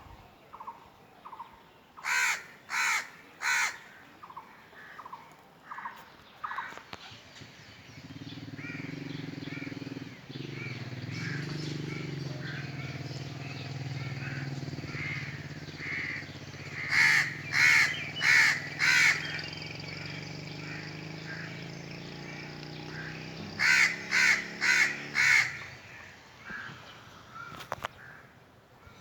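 Crows cawing in loud runs of three, four and five harsh caws, with fainter calls in between. A steady low rumble runs under the calls through the middle stretch.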